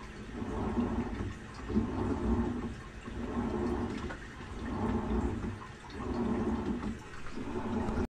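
Samsung WA50R5200AW top-load washing machine in its wash stage with a deep fill of water. The wash plate churns the water one way, then the other, so the swishing swells and fades about once every second and a bit over a low motor hum.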